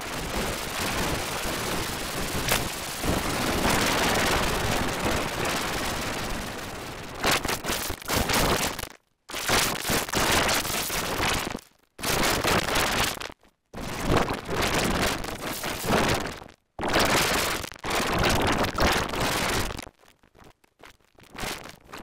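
A cartoon soundtrack put through heavy distortion effects, turned into a harsh crackling rush. It runs unbroken for about seven seconds, then breaks into five bursts of a couple of seconds each, split by short silent gaps, and falls quieter near the end.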